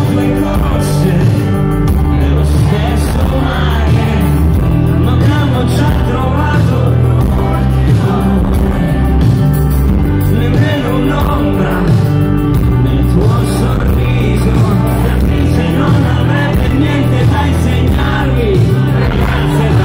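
Live pop-rock band playing loudly, with a male lead vocal over electric guitars, bass, keyboard and drums, heard from within the audience.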